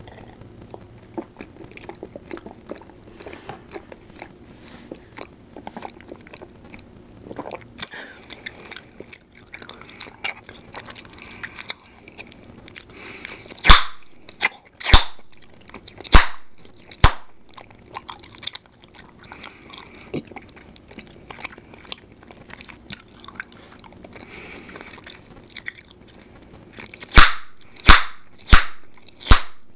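Bubble gum chewed close to the microphone with soft wet smacking, broken by sharp loud gum pops: four spaced about a second apart around the middle and a quicker run of four near the end.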